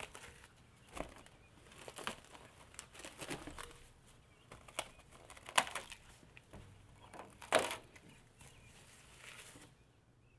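Plastic cling film crinkling and rustling as it is pulled and stretched over a glass bowl, with irregular sharp crackles, the loudest a little past halfway.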